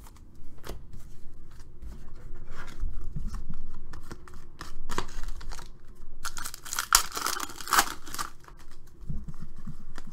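A foil basketball card pack (Panini Contenders) being handled and torn open: scattered rustles and clicks of the wrapper, then a loud crinkling rip of the foil from about six to eight seconds in, followed by softer handling as the cards come out.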